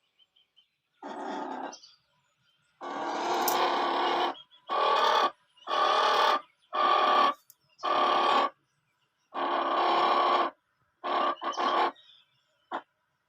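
Chicken giving a series of about nine loud, harsh calls, each lasting half a second to a second and a half, with short pauses between them.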